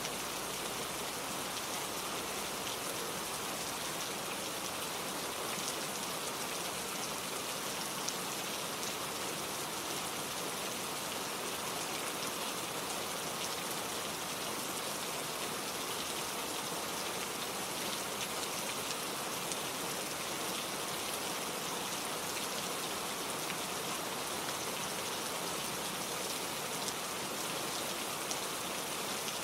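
Steady gentle rain falling, a continuous hiss of drops with scattered faint individual drop ticks and no thunder.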